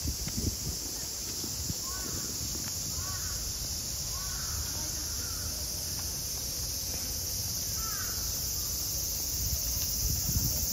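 Crows cawing a few times, short arched calls about two to eight seconds in, over a steady high-pitched drone of summer cicadas.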